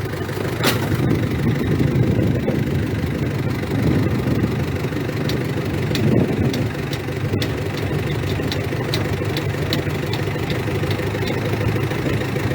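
A motor vehicle's engine running with a steady, even rumble, with a few faint clicks over it.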